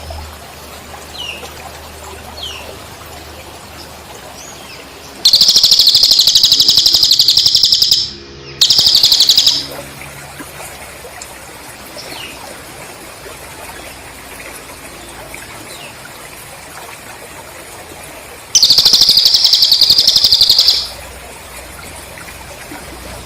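Loud, rapidly pulsed cricket trills in three bursts, one about five seconds in lasting near three seconds, a short one just after, and another near the end, over a steady background hiss. Faint short falling whistle notes of the cililin bird come between the trills.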